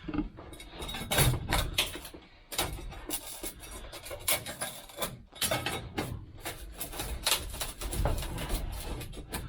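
Irregular clinks, knocks and scrapes of hand tools working on glued mirror glass, with glass pieces clattering.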